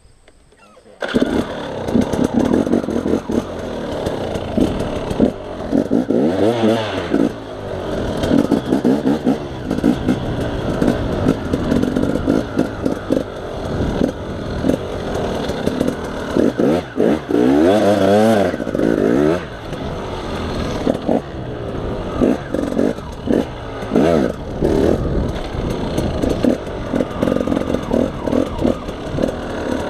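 2015 KTM 250 XC-W two-stroke dirt bike engine running under throttle, starting about a second in. It revs up sharply and drops back about six seconds in and again around eighteen seconds in.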